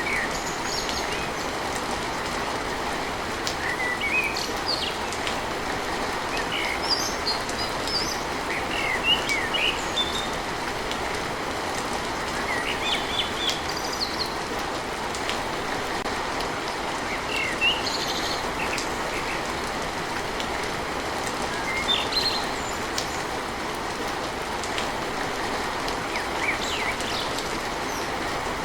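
Steady rain drumming on a tin roof, with birds chirping in short calls scattered throughout.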